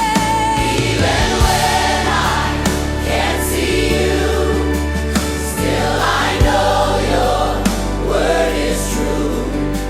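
Gospel worship music with a choir singing sustained, wordless-sounding phrases over held bass and chords.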